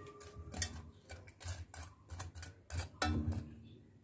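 Faint, irregular clicks and taps of kitchen utensils against a steel vessel. About three seconds in comes a louder knock that leaves a short ringing tone.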